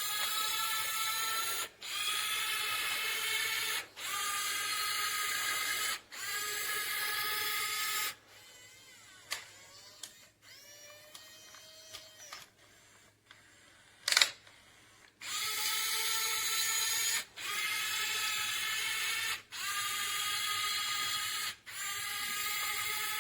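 Small electric gear motors of a toy RC wheel loader whining in a series of runs about two seconds long, with short breaks between them, as the toy works through its built-in demo mode. In the middle there is a quieter stretch with a faint rising-and-falling whine and a single sharp click.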